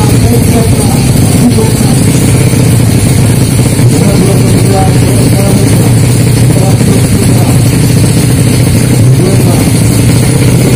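Tuned 200cc automatic drag bike's engine running loud and steady at the start line.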